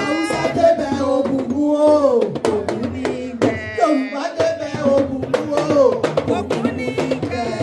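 Music with a voice singing over drums and percussion, the drum strikes sharp and frequent.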